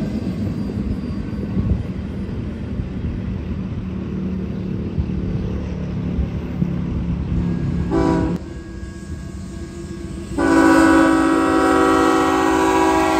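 Covered hopper cars of a freight train rolling past with a steady low rumble. About eight seconds in, a diesel locomotive's horn sounds a short blast, then a couple of seconds later a loud, long blast that holds to the end.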